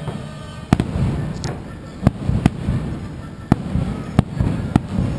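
Fireworks shells bursting: about six sharp bangs at uneven intervals, each followed by a low rumble.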